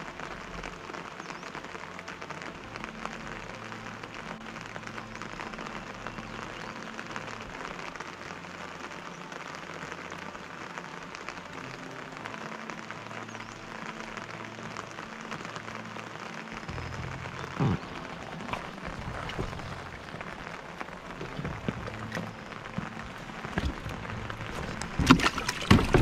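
Steady rain hissing down on the river and rocks, with soft background music underneath. A few sharp knocks near the end.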